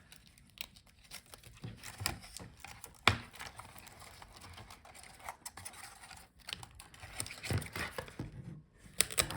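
Small plastic clicks, taps and rustling as a laptop touchpad and its ribbon cable are handled and lifted out of the palmrest, with one sharper click about three seconds in.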